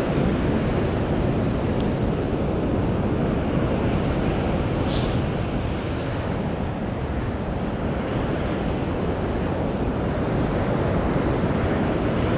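Ocean surf washing onto a sandy beach in a steady roar of waves, with wind rumbling on the microphone.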